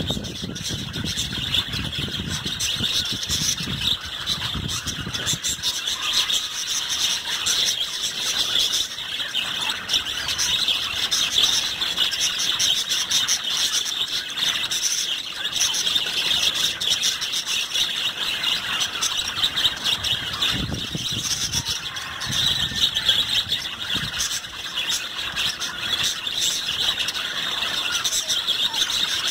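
A flock of budgerigars chattering and warbling all at once, a dense, steady high-pitched twittering of many birds.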